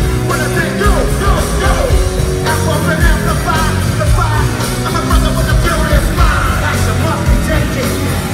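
Rap-rock band playing live and loud through a concert PA, with distorted electric guitar, bass, drums and a vocalist on the mic, heard from within the crowd.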